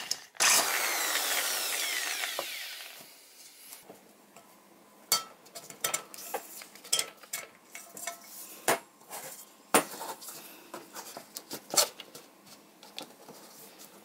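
Power drill running against a thin tin-plate can for about three seconds, its pitch falling as it winds down. Scattered light clicks and knocks follow as copper pipes are fitted into the can and handled.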